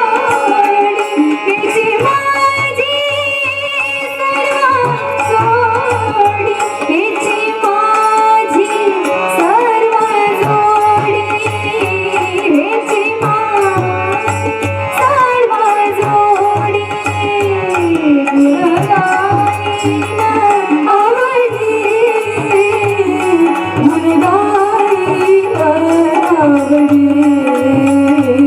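A young woman's voice singing a Marathi devotional abhang in a gliding, ornamented melody, accompanied by tabla with a steady run of deep drum strokes.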